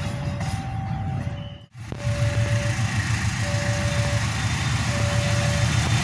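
Low diesel rumble of a train moving slowly through a speed restriction, with a repeating electronic warning tone over it. The sound drops out briefly just before two seconds in, then a louder rumble follows from a CC 206 diesel-electric locomotive approaching.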